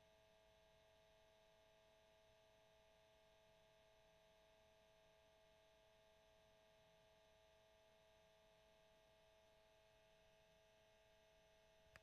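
Cassette tape player's motor running, a very faint steady hum with a high whine that does not change.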